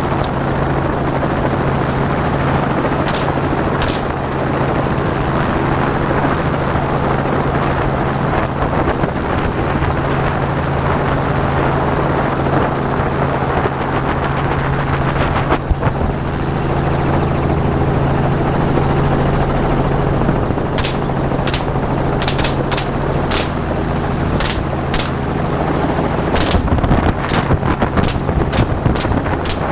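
Helicopter cabin noise: the steady drone of the rotor and engine through an open door. A door gunner's AR-style rifle fires a couple of shots about three and four seconds in, then a rapid string of shots, about two a second, through the last nine seconds.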